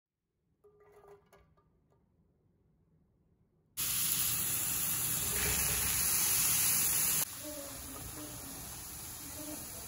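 Diced red onion and mushrooms sizzling in a frying pan: a loud, even hiss that starts abruptly about four seconds in, then a quieter sizzle for the last few seconds as sliced peppers go into the pan.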